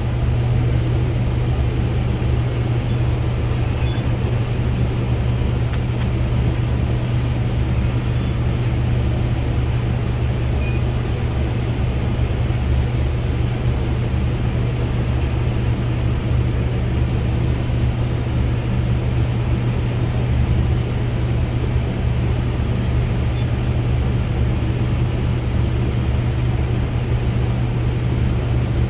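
Case IH combine harvester running steadily with a constant low drone while unloading grain through its unloading auger, heard from the operator's seat.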